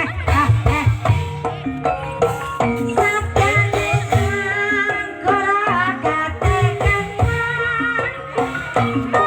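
Live Banyumasan gamelan music for an ebeg dance: tuned percussion plays a repeating melody of short ringing notes over kendang drum strokes. A singer's wavering voice joins about three seconds in and carries on for a few seconds.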